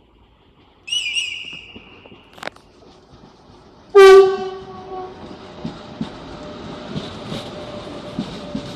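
A Renfe train sounds a short, high whistle-like tone, then about four seconds in a much louder, lower horn blast that fades over about a second. After the horn, the train's wheels come rolling in with clicks over the rail joints, the rumble growing steadily.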